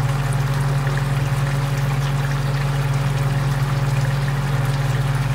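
Marinated chicken pieces simmering in their sauce in a pot on a gas burner: a steady bubbling sizzle over a low, even hum.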